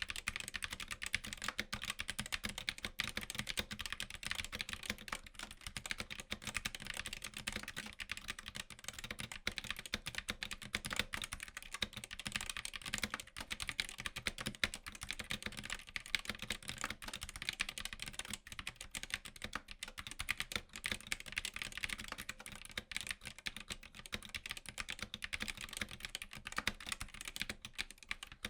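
Continuous fast typing on a mechanical keyboard with Tesoro linear optical switches (Gram Spectrum SE): a dense, steady stream of key clacks.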